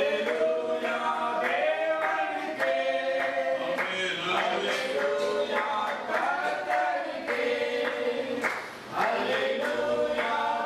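A congregation singing a worship song together in chorus, with hand clapping.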